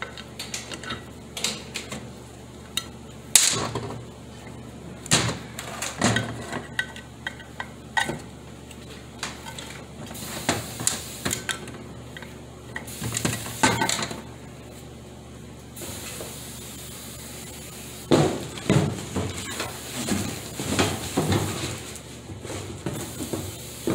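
Steel hand tools clinking, tapping and scraping against the aluminium valve body of a 4T40E automatic transmission as it is taken apart: an irregular run of sharp metallic clicks and knocks, with a stretch of soft hiss in the middle.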